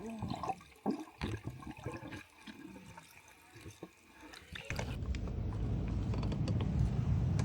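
Water splashing and sloshing in short irregular bursts as people move about in the water. About two-thirds of the way through it gives way abruptly to a steady, louder low rushing noise.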